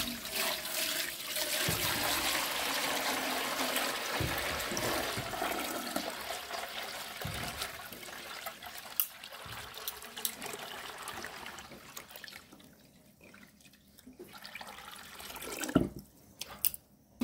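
Fresh coconut water pouring in a steady stream through cheesecloth into a pot, splashing as it is strained. The pour tapers off after about ten seconds, and a few knocks follow, the loudest near the end.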